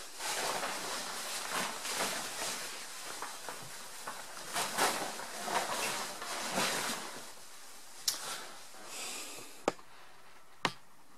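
Stiff Gore-Tex bivvy bag fabric rustling and crinkling as it is unfolded and spread out, in uneven surges, followed near the end by three sharp clicks.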